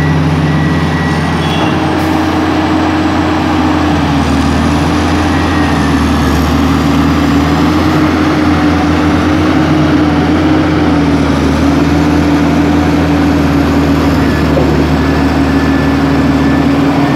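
Heavy diesel engines of a Caterpillar 375L hydraulic excavator and a Terex 3066C articulated dump truck running, a loud, steady drone.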